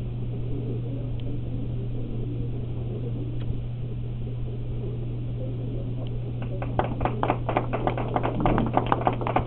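A small group of people applauding by hand, starting about two-thirds of the way in, over a steady low hum in the room.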